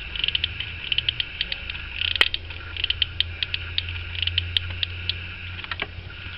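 Hot glue gun in use, its trigger and feed mechanism giving many small irregular clicks and creaks as glue is squeezed out onto EVA foam, with one sharper click about two seconds in. A steady low hum sits underneath.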